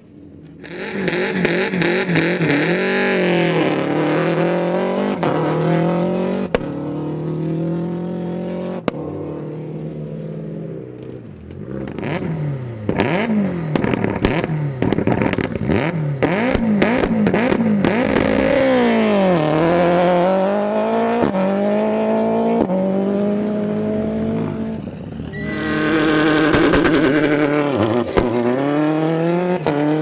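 Rally cars driven hard on a gravel stage: the engines rev up and down through repeated gear changes. A rush of gravel and tyre noise comes as a car passes close, once near the start and again near the end. In the middle there is a run of sharp pops and cracks over the engine.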